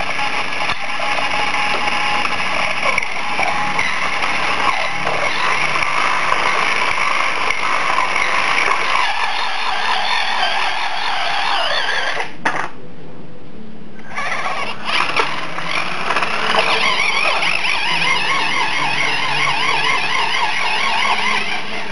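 Small electric motor and gears of a 1/32-scale Mitsuwa mini RC monster truck whining, the pitch wavering up and down as the throttle is worked. The whine stops for about a second and a half roughly twelve seconds in, then comes back.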